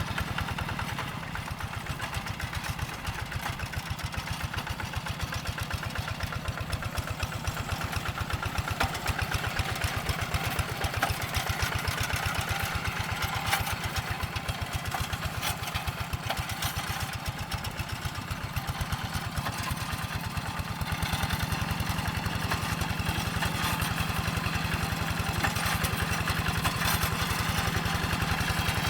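Hand tractor's diesel engine running steadily while plowing, a rapid even chugging that gets a little louder about two-thirds of the way through.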